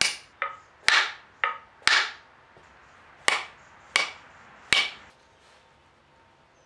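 Small steel hammer driving a glued wooden wedge into the top of an axe handle in the eye of the head. About eight sharp strikes over five seconds, a couple of them lighter between the heavier blows, then the hammering stops.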